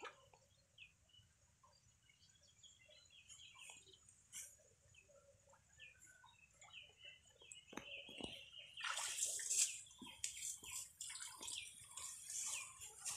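Small birds chirping here and there, then from about nine seconds in, louder splashing and sloshing of muddy water as a person wades and grabs about by hand in a shallow pond.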